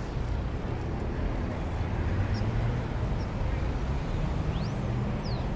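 Outdoor city ambience: a steady low traffic rumble, with a few faint high chirps near the end.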